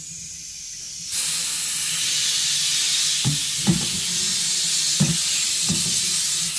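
Compressed air hissing steadily from an air hose as a tyre is inflated to seat its bead on the rim. The hiss starts about a second in, with a few soft knocks along the way.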